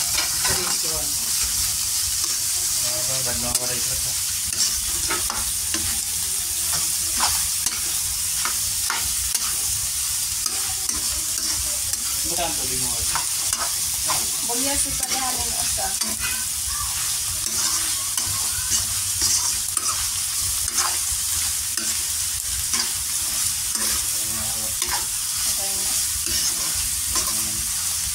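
Chopped cockle meat with onion sizzling in a hot pan while it is stir-fried, with a steady hiss. The spatula scrapes and clicks against the pan at irregular moments as it turns the food.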